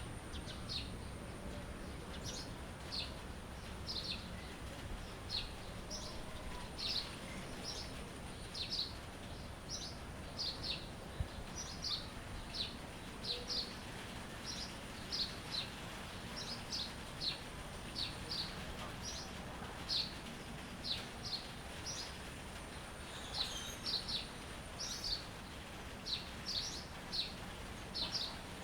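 A songbird chirping over and over: short, high, quick chirps, about one or two a second, over a steady low background rush.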